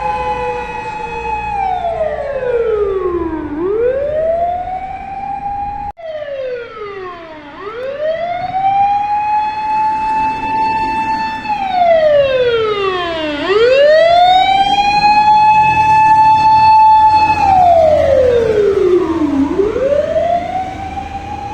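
Japanese fire engine siren wailing in long rising-and-falling cycles of about six seconds each: the pitch climbs quickly, holds high for a couple of seconds, then slides steadily down before climbing again. At the start a second siren overlaps it, and about six seconds in the sound cuts abruptly to another fire engine's siren with the same wail.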